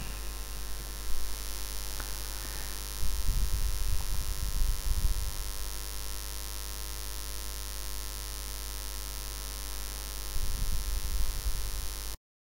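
Steady background hiss and low hum outdoors, with irregular low rumbles of wind on the microphone about three seconds in and again near the end; the sound then cuts off abruptly.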